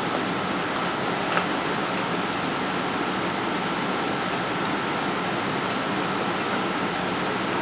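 A steady hiss of background noise with a faint, high, steady tone running through it, and one light click about a second and a half in.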